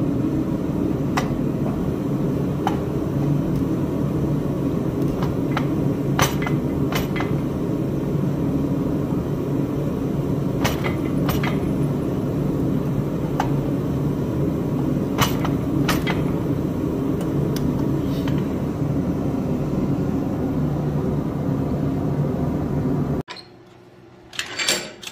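A forge running with a steady, loud rush, with a dozen or so sharp clicks and taps scattered through it; it cuts off suddenly near the end, followed by a couple of knocks.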